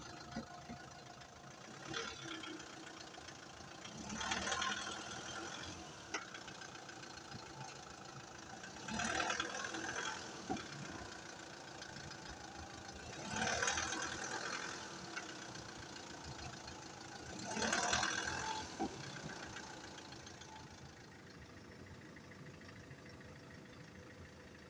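SsangYong Kyron with its engine idling while the steering wheel is turned from lock to lock: four rushing surges of noise about every four to five seconds, with a few short sharp knocks among them. The knock is from worn upper control arm bushings.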